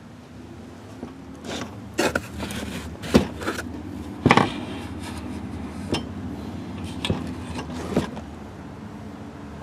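Hard objects being handled: a run of sharp knocks and clacks, about six of them spread over several seconds, with scraping between them and a low steady hum beneath.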